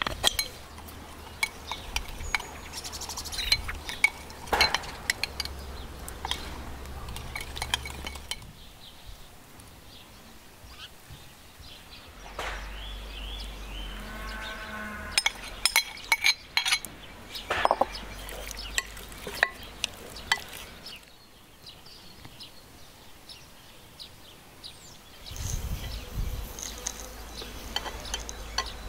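A metal spoon clinking and scraping against a glass bowl, stirring an oil and spice marinade and mixing it into raw chicken legs, in a long irregular string of sharp clinks.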